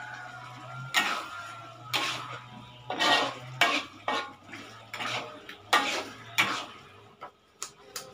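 Long metal ladle scraping and clinking against a metal wok while stirring a thick sauce, about ten short strokes roughly one a second.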